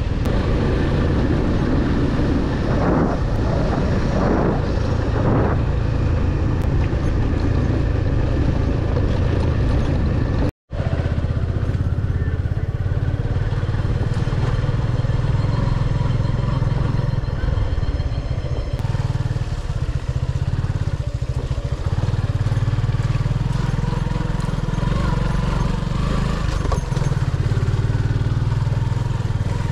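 Motorcycle engine running steadily under way, with a short total dropout about ten seconds in.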